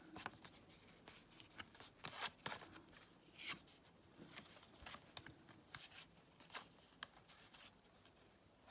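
Tarot cards being handled during a flip-through: faint slides, taps and rubs of cardstock as cards are moved one after another, with a few sharper clicks.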